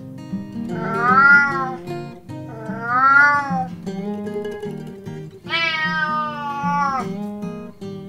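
A domestic cat meowing three times, each meow rising and falling in pitch, the third one longer and drawn out, over background guitar music.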